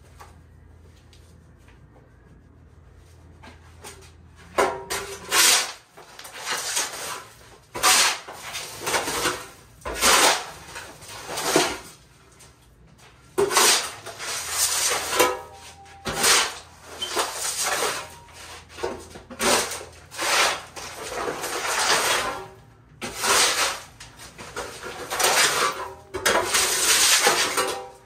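Shovel scooping and scraping loose dirt across a floor in repeated strokes, about one every second or so, starting about four seconds in.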